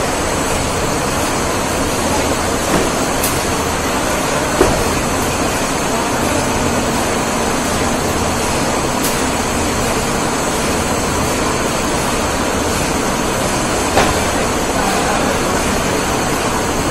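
Slat-type spiral conveyor and its geared drive motor running: a steady mechanical din with a low hum, and two sharp knocks as the rolls travel along.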